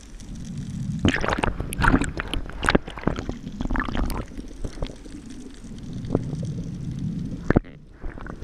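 Water gurgling and sloshing, with a dense run of clicks and knocks in the first half and one sharp knock near the end.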